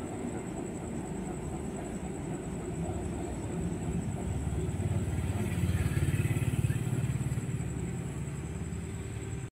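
Diesel engine of the stalled KAI CC 206 locomotive turning over during a restart attempt: a low rumble swells with a fast pulsing about four seconds in, peaks, and eases off. The sound cuts off abruptly near the end.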